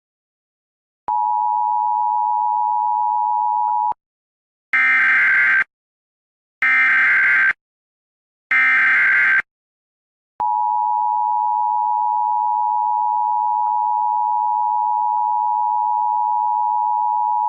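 Emergency Alert System test signal. A steady electronic tone runs for about three seconds, then come three harsh, screeching digital data bursts about two seconds apart (the coded alert header). From about ten seconds in, the long, steady alert attention tone sounds.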